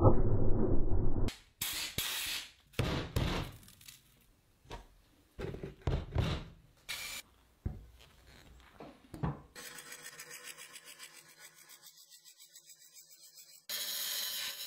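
Wood lathe turning a wood-and-epoxy blank, with a hand-held turning tool cutting the spinning work. A string of short scraping cuts is followed by a quieter, steady machine sound with a regular pulse, and a louder continuous cut near the end.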